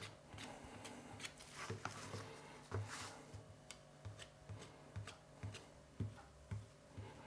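Knife scoring the membrane on the back of raw beef flat ribs crosswise: a quick run of faint cuts and taps against a plastic cutting board, about two or three a second.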